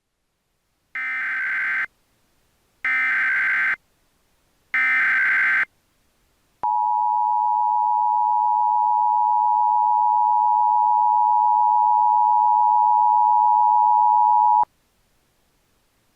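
Emergency Alert System tones opening an alert. First come three short, buzzy digital bursts of SAME header data, each about a second long. Then comes the two-tone attention signal (853 and 960 Hz), held steady for about eight seconds before cutting off suddenly.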